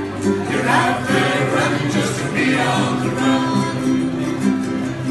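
Music: ukulele playing with a singing voice over it.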